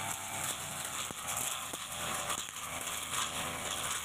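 Backpack brush cutter running, its blade slashing through weeds and woody stems with scattered crackles and snaps.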